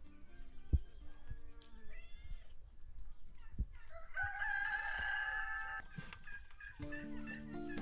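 A rooster crows once, a long call lasting about two seconds that starts around four seconds in. A single sharp knock comes just under a second in.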